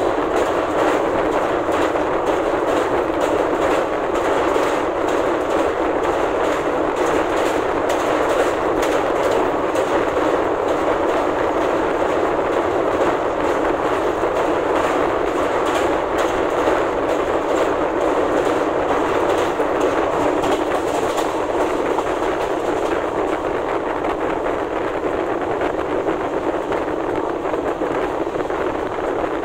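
Duronto Express running at speed over a steel truss railway bridge, heard from inside the coach: a loud, steady rumble of wheels on rails with a dense, rapid clatter. The clatter eases slightly in the last few seconds as the train comes off the bridge.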